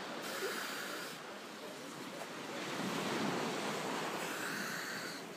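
Surf washing on a shingle beach, with wind on the microphone, swelling louder about halfway through and easing again.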